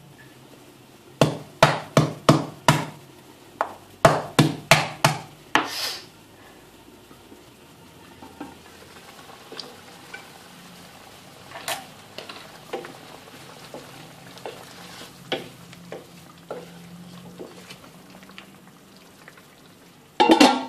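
Kitchen cookware sounds: two quick runs of sharp, evenly spaced knocks in the first few seconds, then a spatula stirring and lightly tapping in a wok of simmering fish in sauce, and a louder clatter of cookware at the very end.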